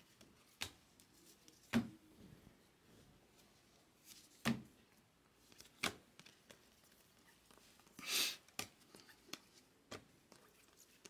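Chrome baseball cards being flipped through by hand, each card slid off the stack with a short, sharp snap, several times at uneven intervals. About eight seconds in there is a longer papery rustle as the cards are handled.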